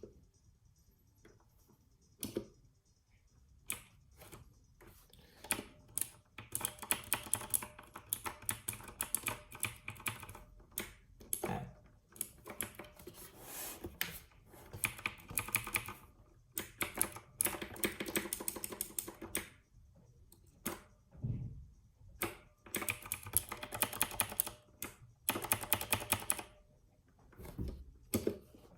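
Royal Kludge RK61 mechanical keyboard being typed on fast: runs of rapid keystrokes a few seconds long, broken by short pauses.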